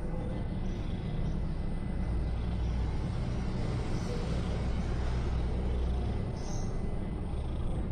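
Steady low rumble of a motor vehicle running nearby, a little louder through the middle.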